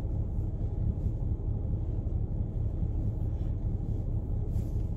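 Car idling, a steady low rumble heard from inside the cabin.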